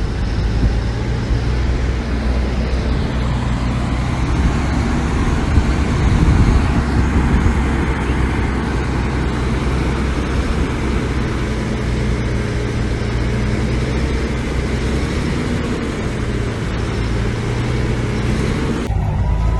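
Heavy diesel earthmoving machinery running steadily under work, with a low, even engine drone and a noisy clatter above it. Near the end the noisy upper part cuts off suddenly while the low engine note carries on.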